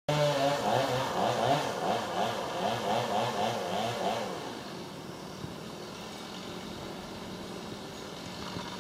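Small engine revving up and down in quick, even repeats, about two or three a second, for roughly four seconds, then dropping back to a quieter steady running.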